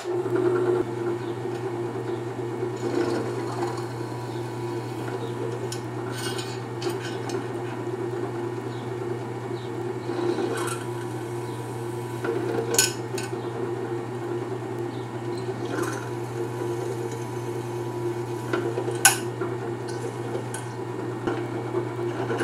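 Benchtop drill press running at a steady hum while it drills holes in 14 gauge steel plate, with sharp metallic clicks and scrapes now and then, the loudest about 19 seconds in.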